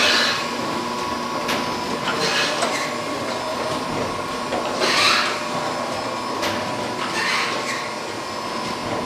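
Okamoto PSG-205 hydraulic surface grinder running: a steady whine with a hissing surge about every two and a half seconds.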